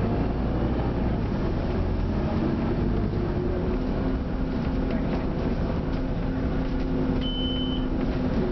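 Scania OmniCity bus's diesel engine and running noise heard from inside the passenger saloon, a steady drone whose low engine note shifts a little. A short, single high beep sounds near the end.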